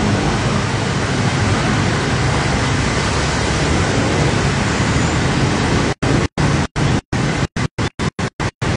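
Motorcycles and a car driving through a flooded road: a steady, noisy wash of splashing water and engines. About six seconds in, the sound begins to cut out in many short gaps, several a second.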